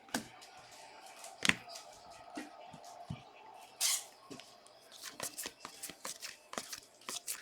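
Football trading cards being handled and flipped through by hand: a quiet, irregular run of small clicks and short sliding swishes, one a little louder about four seconds in.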